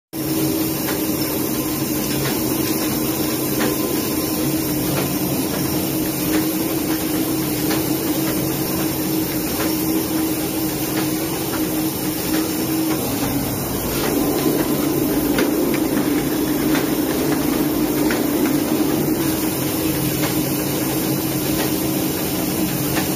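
Small sheet-fed offset printing press running, a steady machine hum with light, regular clicking from its moving parts.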